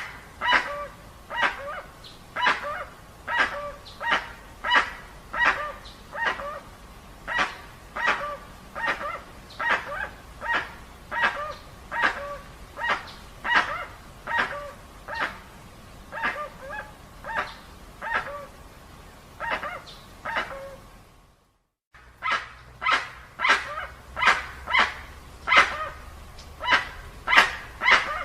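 Dusky-legged guan (jacuguaçu) calling: a long series of short, loud, barking calls, about one to two a second, broken once by a brief silence about 21 seconds in.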